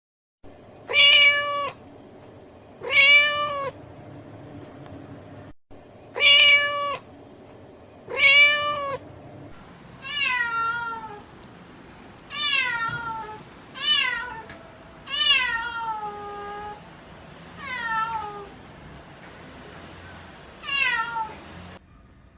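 Domestic cat meowing repeatedly: four loud meows held at a level pitch about two seconds apart, then six softer meows that each fall in pitch.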